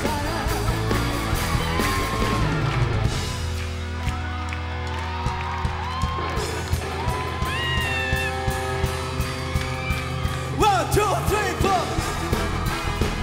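Live rock band playing a song: a steady drum beat, bass and guitar under a lead vocal that climbs to high notes twice in the second half.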